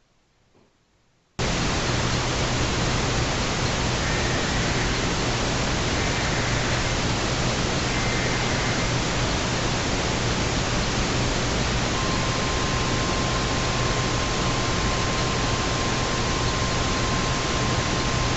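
Weather radio receiver hissing with loud static that cuts in suddenly about a second in, over a low hum. Faint through the static come three short data bursts of an Emergency Alert System header, then a steady weather radio alert tone starting about two thirds of the way in: a severe thunderstorm warning received on a weak, noisy signal.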